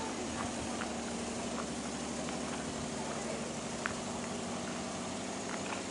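A steady machine hum over a constant hiss, with a few faint scattered clicks; the hum fades out near the end.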